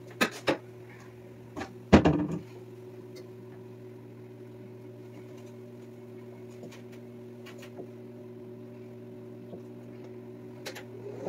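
Steady low kitchen appliance hum, with a few sharp clicks near the start and a louder knock about two seconds in, as cookware is handled at the stove.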